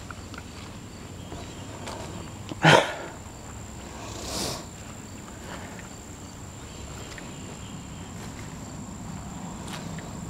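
Footsteps walking on grass, with a steady thin high tone behind them throughout. A single loud, short sound stands out about two and a half seconds in, and a softer high hiss follows about four and a half seconds in.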